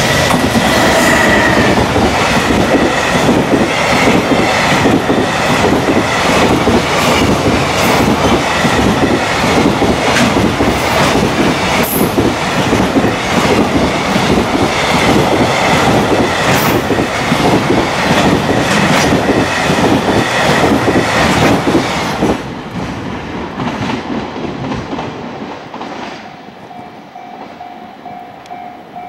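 High-speed freight train running past at speed, its wagon wheels beating a fast, rhythmic clickety-clack over the rail joints. The sound drops sharply about three-quarters of the way through as the last wagon passes, then fades away.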